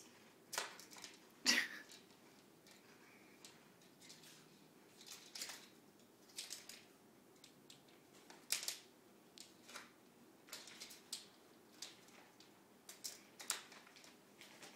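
Plastic spoons batted about by cats, clicking and scraping on a tile floor in scattered short taps, the loudest about a second and a half in.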